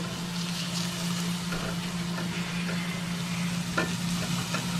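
Diced onions sizzling as they sauté in a pan, stirred with a silicone spatula that gives a few short scrapes and taps against the pan, over a steady low hum.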